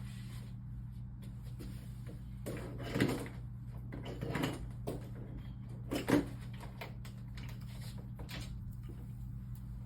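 Soft knocks and rustles of a phone and small tools being handled on a workbench: three short clusters, about 3, 4.5 and 6 seconds in, over a steady low electrical hum.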